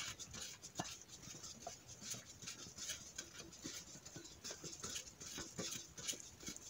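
Faint, irregular ticking and pattering of used engine oil dripping and trickling into a plastic bottle held under the oil pan's drain.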